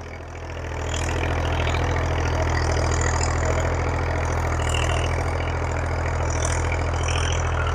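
A Massey Ferguson 1035 DI's three-cylinder diesel engine runs steadily, pulling a 13-tine tiller through the soil under load without labouring. It swells over about the first second, then holds an even drone.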